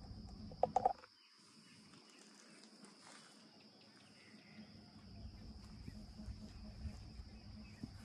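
Steady high-pitched chirring of insects. Just under a second in there is a short, sharp sound, the loudest moment, and a low rumble comes and goes in the second half.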